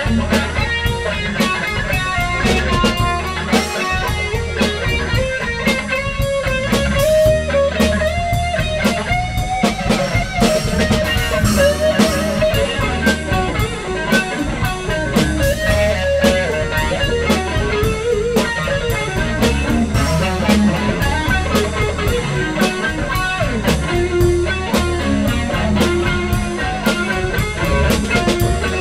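Live blues-rock band playing an instrumental passage: an electric guitar lead whose notes bend up and down in pitch, over a drum kit.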